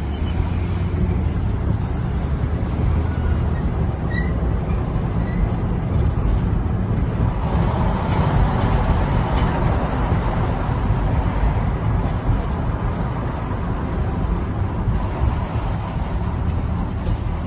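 Car engine and road noise from inside a moving vehicle: a steady low rumble, with a louder, broader stretch of noise from about eight to ten seconds in.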